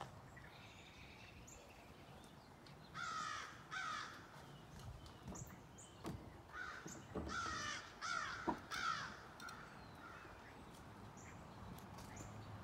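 Harsh bird calls, several in a row: a pair about three seconds in, then a longer run of calls until about nine seconds in. A few sharp knocks fall among the later calls.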